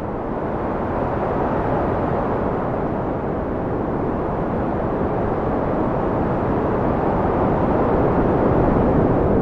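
Steady wind, an even rushing noise weighted toward the low and middle range, swelling slightly toward the end.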